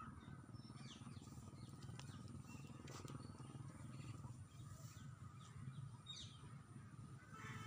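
Quiet outdoor ambience: a steady low rumble with a few faint, short high chirps about three and six seconds in.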